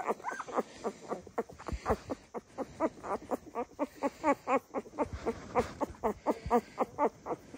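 Five-day-old Dalmatian puppies squeaking and whimpering: a rapid, unbroken run of short squeaks, each rising and falling in pitch, about four or five a second.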